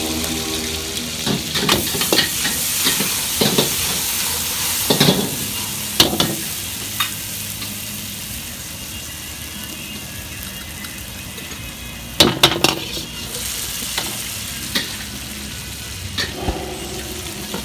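Prawns, squid and chilli paste sizzling in hot oil in a wok, with a steady hiss. A metal ladle knocks and scrapes against the wok now and then, loudest in a cluster about twelve seconds in.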